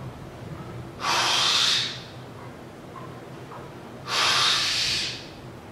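A man's heavy, forceful breaths while straining through reps of a strict barbell curl with about 50 kg: two loud rushes of air, each about a second long, about three seconds apart.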